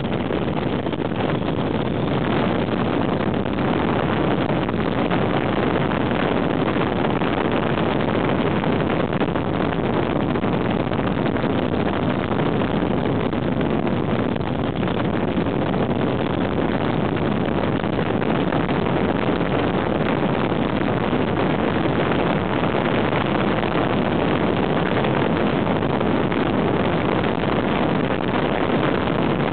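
Motorcycle running steadily at road speed, with wind rushing over the microphone.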